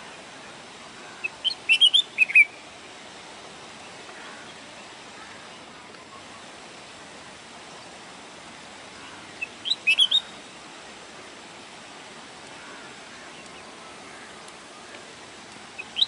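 Red-whiskered bulbul singing: short phrases of quick, bright whistled notes, one about a second in and another near the middle, with a third starting right at the end, over a steady background hiss.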